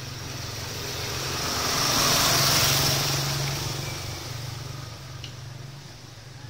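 A road vehicle passing by: its sound rises to a peak about two and a half seconds in and then fades away, over a steady low hum.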